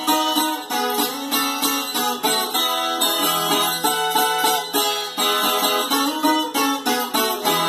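Viola caipira, the Brazilian ten-string guitar, played solo in a quick run of plucked notes. A low note rings on beneath the melody through the middle and again near the end.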